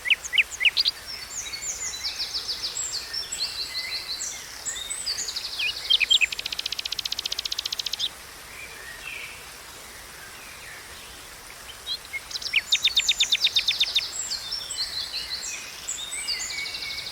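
Songbirds singing, short chirps and fast trills, over a steady rush of flowing water. The birds fall silent for about four seconds in the middle, leaving only the water, then a long fast trill starts again.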